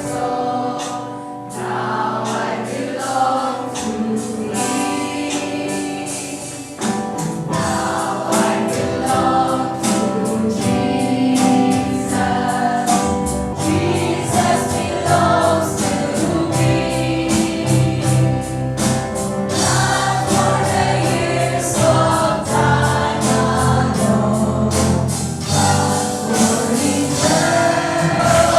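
Christian worship music: a group of voices singing a gospel song over a band, with a bass line coming in about seven seconds in.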